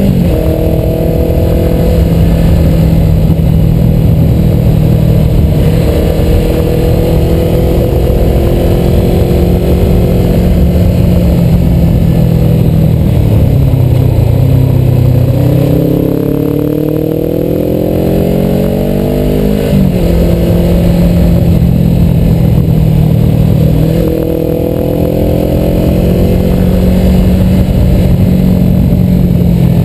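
Suzuki motorcycle engine running under way, heard from the bike with wind rushing over the microphone. Around the middle the engine note falls as the bike slows, then climbs as it accelerates and drops sharply at a gear change about two-thirds of the way in, before settling back to a steady cruise.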